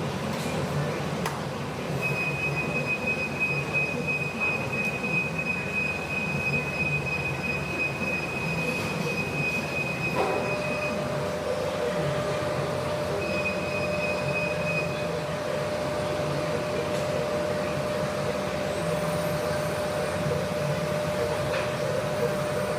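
TIG welding arc on stainless steel: a steady hiss carrying a thin, high whine, which gives way to a lower steady tone about ten seconds in.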